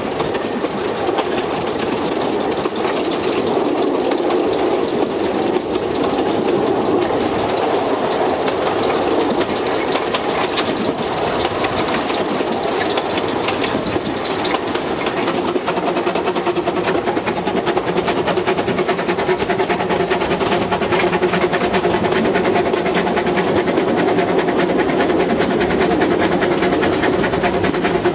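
Two-foot-gauge steam locomotive No. 10 running along the track, heard close up from the front of the engine: a steady, fast, even clatter of its running gear and wheels on the rails, a little louder in the second half.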